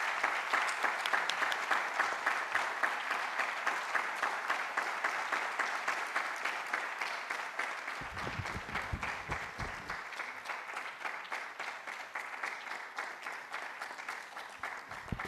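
Audience applauding, a dense patter of many hands clapping, strongest at the start and slowly dying away. A few low thumps come about two-thirds of the way through.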